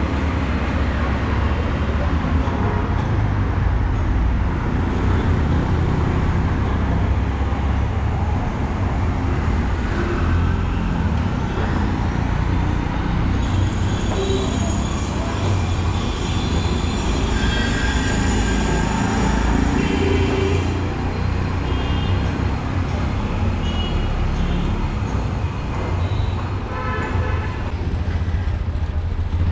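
Busy street traffic: a steady rumble of engines and tyres, with short high horn toots now and then.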